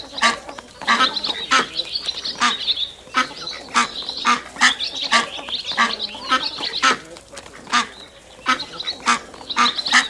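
Ducks quacking over and over, with many short calls in quick succession and a few longer, drawn-out ones.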